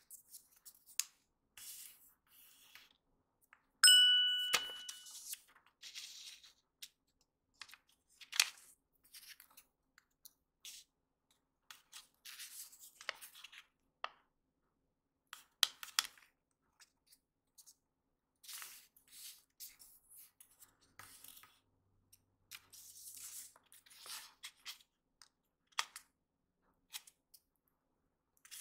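Sheet of origami paper crinkling and rustling under the fingers as it is folded and creased, in short scattered bursts. A single bright ding about four seconds in, the loudest sound, ringing away over about a second.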